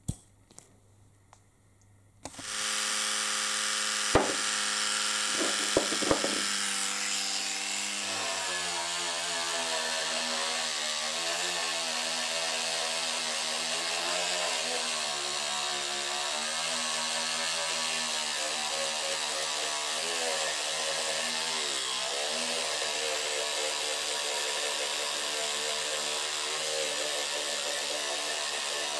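Electric toothbrush switching on after a few light clicks and running with a steady buzz, its brush head scrubbing the bench grinder's painted switch housing to clean off marking. The buzz wavers in pitch as the brush is pressed and moved, with a couple of sharp knocks a few seconds after it starts.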